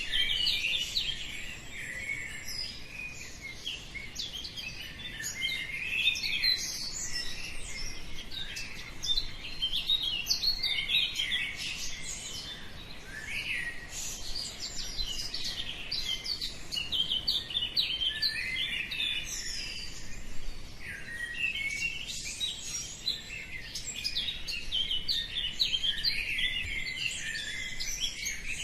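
A dawn chorus: many songbirds chirping and singing at once, their calls overlapping continuously.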